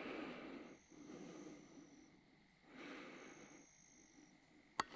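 Very faint sound: a thin, high insect trill that comes and goes twice, over soft swells of noise, with a sharp click just before the end.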